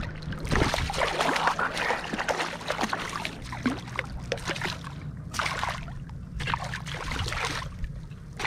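Shallow water splashing and sloshing in several bursts as a hooked barracuda is brought in through ankle-deep water to the angler's feet.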